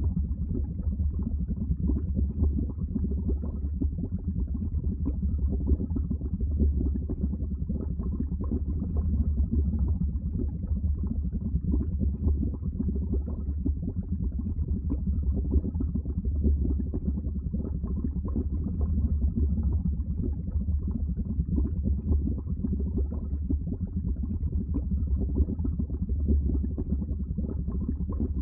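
Water bubbling continuously, deep and muffled, a dense stream of small bubbles with no break.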